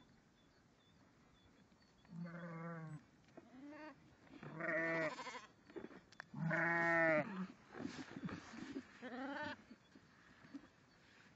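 Sheep bleating: about five quavering bleats in a row, the first about two seconds in and the loudest around the middle.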